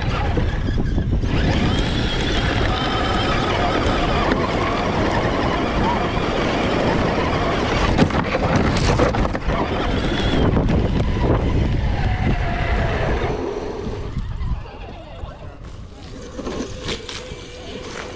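Onboard sound of a 1/10-scale RC truck driving over dirt: its motor and gears whine, rising and falling with the throttle, over a steady rumble of the chassis on rough ground. It gets quieter about three quarters of the way through.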